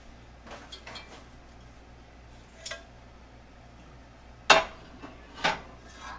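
A metal spoon scraping and clinking against a red enamelled Dutch oven while taco meat is spooned out, then two loud knocks about a second apart as metal strikes the pot while it is tipped over a baking dish.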